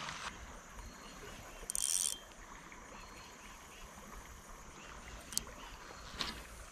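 A cast with a spinning rod and slip bobber: the line hisses off the spool for about half a second, about two seconds in. Faint water ambience follows, with a few small clicks of the reel near the end.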